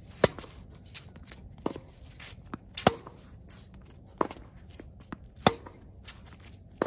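Tennis rally on a hard court: the ball is struck back and forth, six sharp racket pops about every 1.3 seconds, the near player's hits loud and the far player's fainter. Softer ticks of the ball bouncing fall between the hits.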